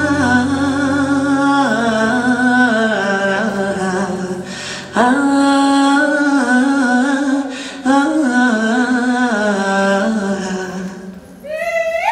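Recorded dance music: a single sung voice carries a wordless, melismatic melody in long held phrases that break off about every three seconds, over a low steady drone that drops out about a second and a half in. A rising vocal cry begins near the end.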